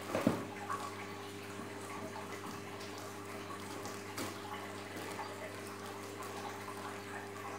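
Scissors snipping and plastic wrap crinkling as a wrapped cardboard box is cut open, with the loudest cut about a quarter second in and a few lighter snips later. Underneath, a steady hum and a trickle of water from aquarium equipment.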